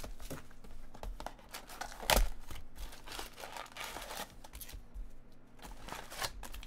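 Plastic wrap and cardboard of a sealed trading-card box crinkling and tearing as the box is opened, with one loud rip about two seconds in. Then the foil card packs rustle as they are pulled out of the box.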